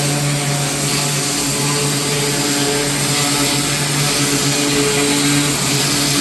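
Gas-engine pressure washer running steadily, its engine hum under the loud hiss of the water spray on brick pavers.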